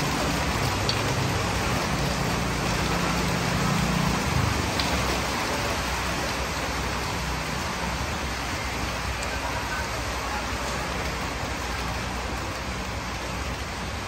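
Steady rain falling, an even hiss. A low hum underneath stops about four and a half seconds in.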